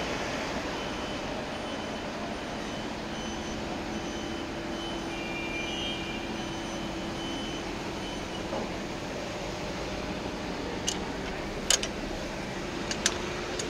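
Steady background street traffic noise, with a faint engine hum through the middle. Several sharp clicks come near the end.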